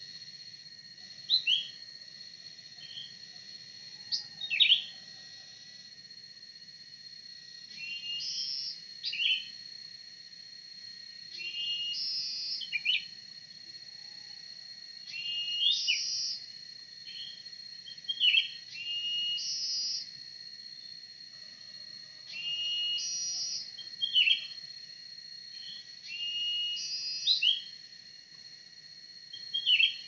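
Cucak ranting bird calls used as a lure: sharp sweeping call notes, and from about eight seconds in a chattering phrase followed by sharp notes, repeating about every three and a half seconds. A steady high insect drone runs underneath.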